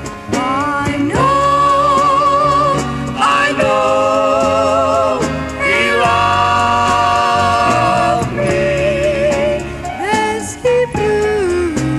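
Gospel song: singing in long held notes with vibrato over instrumental backing.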